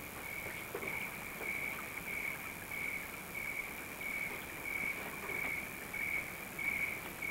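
Cricket chirping, a steady high pulsed trill repeating about twice a second.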